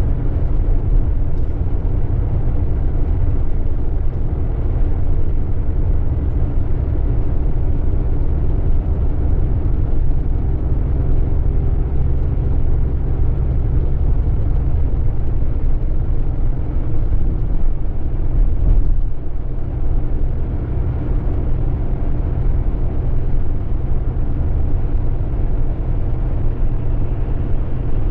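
Inside the cabin of a 2008 Scania K420EB coach travelling at steady speed: the diesel engine drones steadily under a low rumble of road and tyre noise. A brief jolt-like change in the sound comes about two-thirds of the way through.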